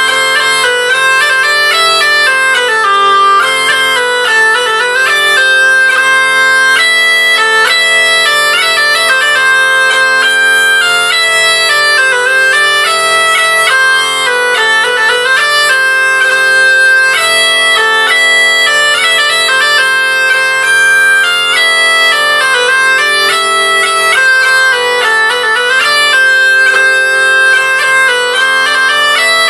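Medieval bagpipes in G by Varro playing a melody over a steady drone, the chanter's notes changing quickly above the held drone tone.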